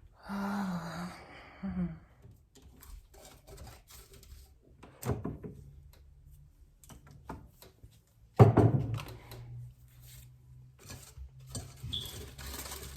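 Objects being handled in a small room: scattered light clicks and knocks, a louder knock about five seconds in and a loud thump about eight seconds in.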